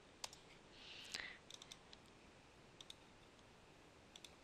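Near silence with a few faint computer mouse clicks scattered through it, two close together about three seconds in and two more near the end.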